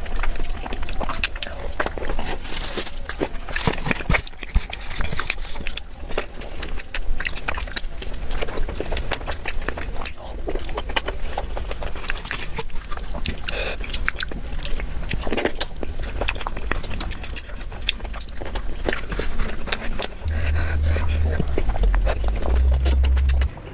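Close-miked eating sounds: chewing, biting and wet lip smacks, with many short clicks. A low rumble runs under them over the last few seconds.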